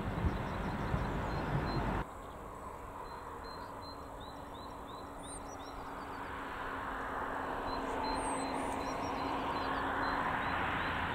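Outdoor ambience: a heavy low rumble of wind on the microphone cuts off about two seconds in. Small birds then chirp faintly, and a rushing noise slowly builds over the last several seconds.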